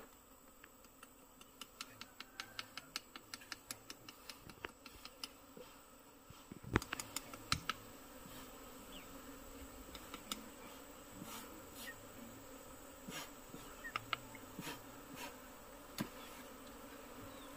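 Honeybees buzzing faintly around an open wooden box hive. About two seconds in comes a run of quick crisp ticks, several a second, for a few seconds, then scattered single clicks, as a knife cuts and scrapes honeycomb off a frame.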